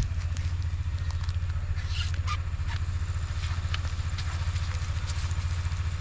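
A small engine running steadily at idle, a low, rapid, even pulsing, with light rustling and a few clicks about two seconds in.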